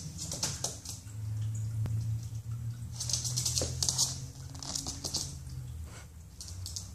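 Miniature pinscher puppy's claws skittering and tapping on a laminate floor, with the fleece blanket rustling and dragging as it pounces and tugs at it, in several short scratchy bursts. A low steady hum runs underneath for several seconds.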